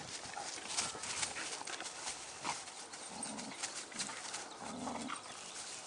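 A dog chewing and tugging at a stick on dry leaf litter: a run of sharp cracks and crackles from the wood and leaves, with a few short low grunts from the dog.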